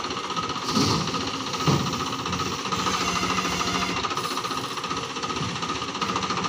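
Farmtrac tractor's diesel engine running with a fast, steady clatter as its front loader tips a bucket of sand into a trolley. Two brief louder knocks come within the first two seconds.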